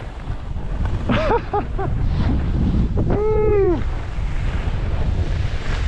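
Wind buffeting a head-mounted GoPro's microphone while skiing downhill, a loud rumbling rush. A person's voice calls out briefly about a second in and again with a longer rising-and-falling call about three seconds in.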